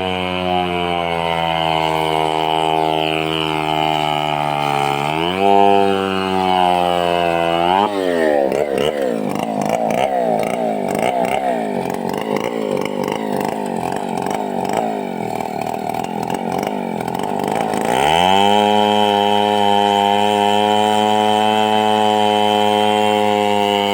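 Two-stroke chainsaw running at high revs with a brief rev-up about five seconds in. From about eight seconds its pitch drops and wavers under load for some ten seconds as it cuts into a large log, then it runs steady and high again.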